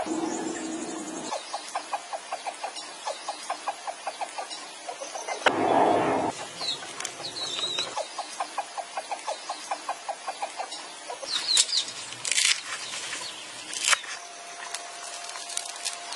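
Chickens clucking, with quick runs of short, evenly repeated clucks and one louder call about six seconds in. A few sharp clattering knocks come near the end, along with a steady thin tone.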